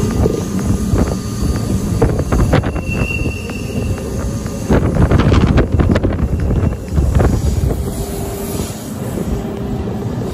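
Rhaetian Railway narrow-gauge train running on the Bernina line: a steady rumble of wheels on rails with scattered clicks and a brief high wheel squeal about three seconds in. Heard from an open carriage window, with some wind on the microphone.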